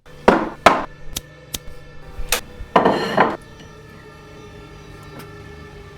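A burst of sharp knocks and bangs, about half a dozen in the first two and a half seconds, with two longer crashing rattles among them. After that a low steady drone carries on, like an eerie music bed.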